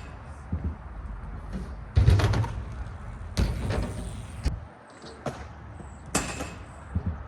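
BMX bike riding on skatepark ramps: a few sudden heavy thuds, about two and three and a half seconds in and again near the end, the second followed by about a second of scraping rush, over a low rolling rumble.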